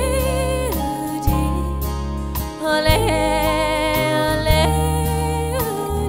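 Song with a singer holding long wordless notes with vibrato over a gentle accompaniment of low sustained notes.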